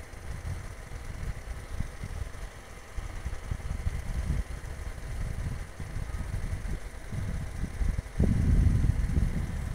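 Wind buffeting the phone's microphone: an uneven low rumble that swells into a stronger gust about eight seconds in.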